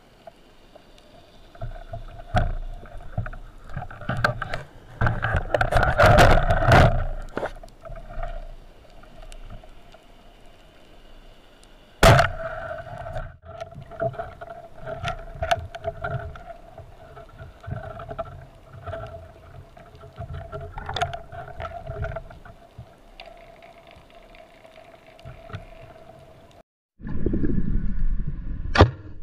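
Underwater recording with a steady motor hum, as of a boat engine heard through the water, over a low rumble and scattered clicks. A sharp crack comes about twelve seconds in. Near the end the sound cuts briefly and gives way to louder rushing water noise.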